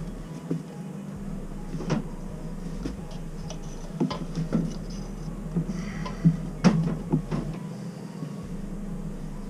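Scattered metallic clicks and taps of a hex key and screwdriver working screws on a gas boiler's metal burner housing, about ten in all, the loudest about two-thirds of the way through, over a steady low hum.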